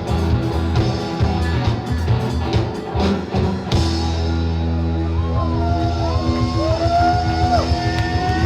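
Rock band playing loud music with a steady beat. A little under four seconds in it moves to held low notes, with a sliding melody line over them.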